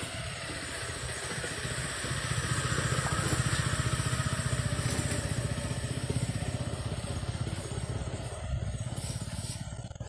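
A small engine running close by with a fast, even firing pulse, growing louder over the first three or four seconds and then slowly fading, like a vehicle passing.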